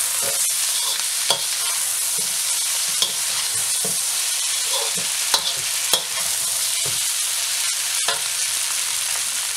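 Rice noodles sizzling in a hot wok as they are tossed and stirred with a metal slotted spatula, with a steady hiss and scattered sharp clicks and scrapes of the spatula against the pan.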